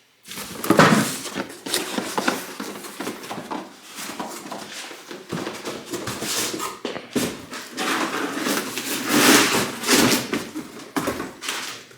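Cardboard box and packing material being handled and opened by hand: continuous rustling and scraping with scattered light knocks as an inner box is unpacked.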